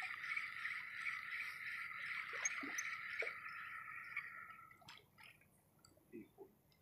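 A steady, high-pitched chirring chorus of calling animals fades out about four and a half seconds in. Near silence follows, with a few faint ticks.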